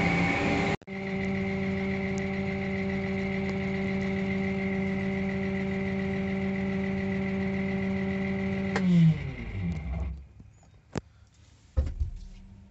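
Tractor engine running at a steady speed, heard from inside the cab. About nine seconds in it swells briefly, then winds down in pitch and fades away, leaving a quiet stretch with a few sharp clicks.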